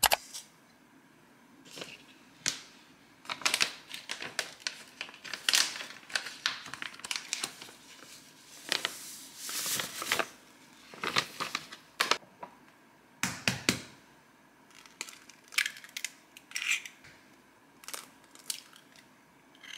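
A paper packet of cornbread mix rustling and crinkling as the dry mix is emptied into a stainless steel mixing bowl, in a run of irregular rustles and scrapes with a longer pour about halfway through. Near the end come a few sharp taps as an egg is cracked into the bowl.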